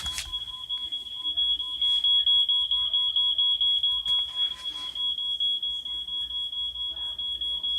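Smoke alarm sound effect played through phone speakers: a continuous high-pitched electronic tone with a fainter lower tone beneath it, fluttering rapidly in loudness.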